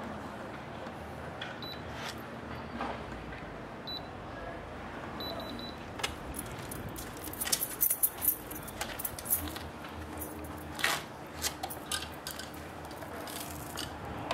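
A few short high beeps from an RC transmitter as its expo settings are adjusted, followed by a run of sharp clicks and rattles from the gear being handled.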